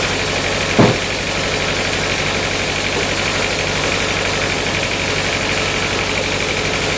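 Sawmill engine running steadily at idle, with one short knock a little under a second in.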